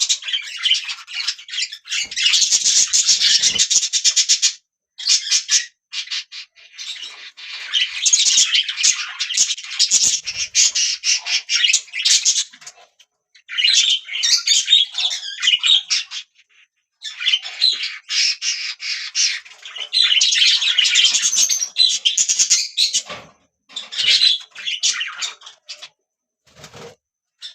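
Budgerigars chirping and chattering, with high rapid warbles and squawks coming in stretches of a few seconds separated by short pauses.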